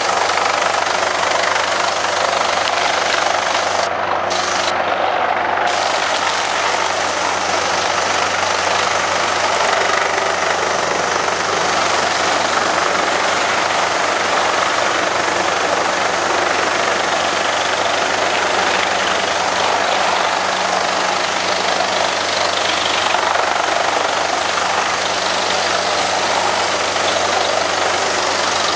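Planalto P 180 MST mobile wood chipper running steadily at work. Its engine and chipping make a continuous loud mechanical drone while chips pour off the discharge conveyor into a truck.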